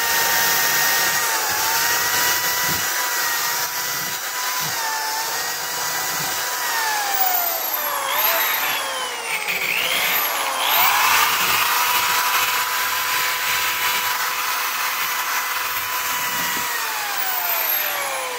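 Electric drill spinning a wire wheel against a rusty steel axe head, its motor whining steadily. In the middle stretch the pitch sags and recovers several times under load while the wire bristles rasp on the metal. Near the end the whine slides down as the drill spins down.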